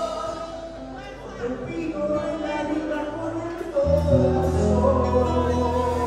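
Band music playing: held notes dip briefly in loudness near the start, and a deep bass line comes in about four seconds in.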